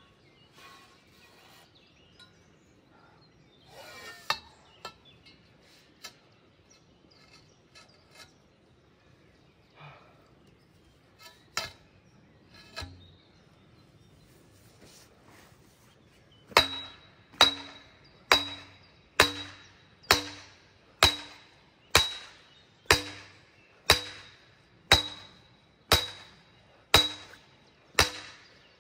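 Sledgehammer blows on the top of a steel scaffold pole, driving it into a sandy riverbed: after a few scattered knocks and clinks, a steady run of about thirteen ringing metallic strikes, a little over one a second, starts about halfway through.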